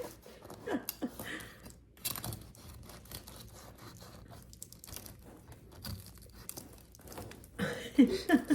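Knife sawing through the hard crust of a dense homemade loaf of bread, a run of small irregular crackles and crunches.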